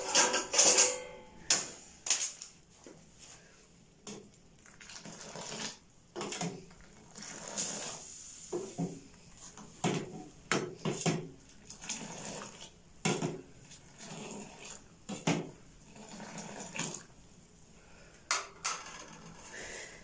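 Steel ladle clinking and scraping against a stainless-steel saucepan of tea in irregular strikes, loudest in the first second.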